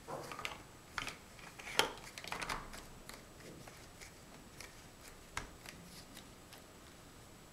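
Large hollow plastic Mega Bloks First Builders blocks clacking and rattling as they are handled and pressed onto the build. There is a quick cluster of clicks in the first few seconds, the sharpest a little under two seconds in, and one more click around five seconds in, then only faint handling.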